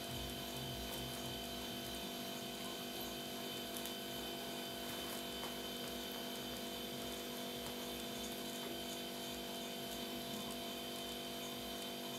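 Steady electrical hum with a few constant tones over faint background hiss, with no distinct events.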